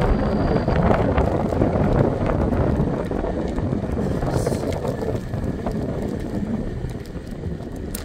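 Wind rushing over the microphone of a moving scooter, mixed with the rumble of its wheels rolling on concrete sidewalk, with a few small clicks and rattles.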